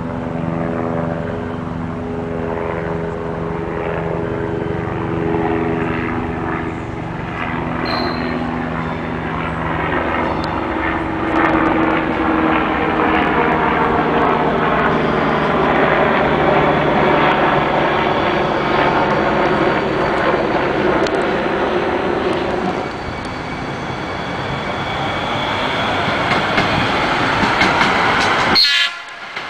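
Hudson-Bergen Light Rail electric train (Kinki Sharyo light rail car) moving through a station. A steady electric hum gives way to a motor whine that shifts in pitch, over a continuous rumble of wheels on rail. The sound drops out briefly near the end.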